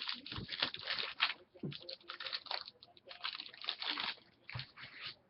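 Sports card packaging being opened: irregular crinkling, crackling and tearing of wrapper and card stock handled by hand.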